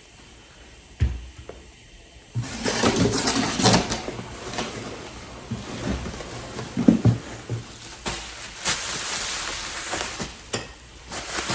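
A single knock about a second in, then packaging rustling and crinkling with small knocks and clicks as a coilover is unwrapped and handled.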